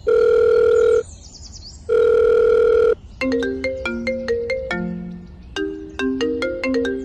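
Telephone call sound effect: two long, steady electronic ringing beeps of about a second each, then a quick electronic ringtone melody of short notes.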